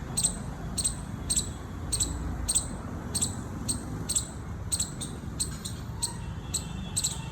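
Indian palm squirrel giving its sharp, high, repeated chip call, about two chirps a second in a steady rhythm.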